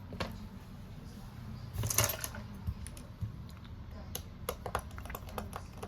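Light, sharp clicks and taps of small hand tools on a smartphone during repair, with a louder cluster of clicks about two seconds in and a quick run of clicks near the end.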